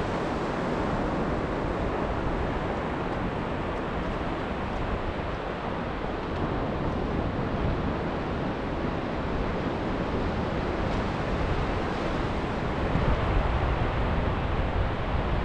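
Steady wash of surf breaking on a sandy beach, with wind blowing on the microphone adding a low rumble.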